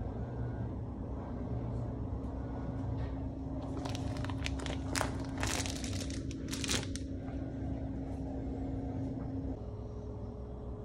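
Plastic vacuum-seal bags crinkling and crackling as they are handled, loudest in the middle, over a steady hum that stops near the end.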